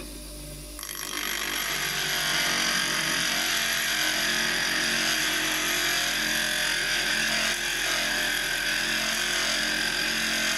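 Steel chisel held against the running wheel of a heavy-duty NuTools bench grinder: a loud, steady grinding hiss starts about a second in and cuts off sharply at the end, over the motor's steady hum.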